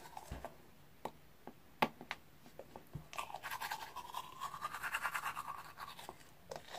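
Teeth being brushed with a manual toothbrush. A few scattered scrapes and clicks come first, then from about three seconds in there are about three seconds of rapid back-and-forth scrubbing strokes.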